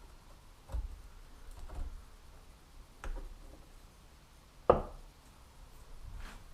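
A few scattered knocks and thumps, with one sharp, louder knock a little past the middle.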